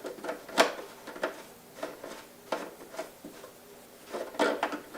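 Parts of a diesel heater kit being handled and unpacked: scattered knocks and clicks, a sharp one about half a second in and a cluster of them near the end.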